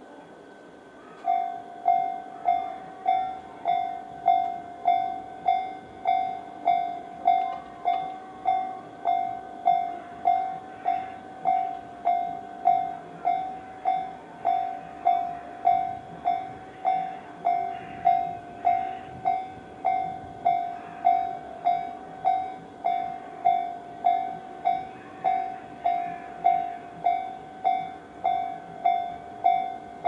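Japanese railway level-crossing electronic warning bell, the slow-tempo Tobu 'sound C' type, starting about a second in and dinging evenly at just under two strokes a second, each stroke fading before the next. It signals that a train is approaching and the crossing barriers are coming down.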